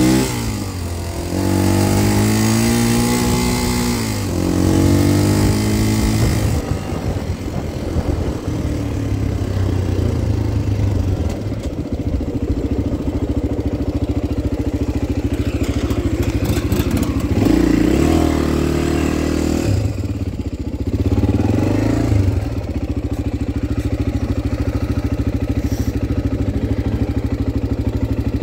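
Honda XR250 four-stroke single-cylinder dirt bike engine under way. It revs up through the gears in the first several seconds, with the pitch climbing and dropping at each shift, then runs fairly steadily at speed with a couple of brief rises in revs.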